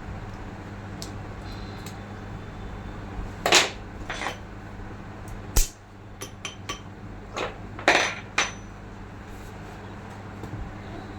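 Metal parts and tools knocking and clinking as a forklift steering hydraulic cylinder is reassembled by hand: a few scattered sharp strikes, the loudest about a third of the way in and again near three quarters, some with a short metallic ring, over a steady low hum.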